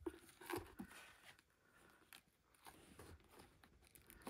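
Faint snips of craft scissors trimming ribbon ends: a few short crisp cuts, mostly in the first second, followed by faint handling of the ribbon bow.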